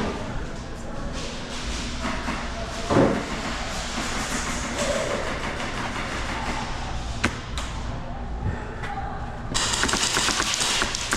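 Scattered thuds and clicks, then near the end a rapid, evenly spaced string of shots from an airsoft gun firing in a burst.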